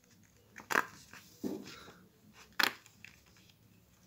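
Paper tearing: the perforated side edge of a Google AdSense PIN mailer being ripped off in three short pulls about a second apart, with light paper rustling between.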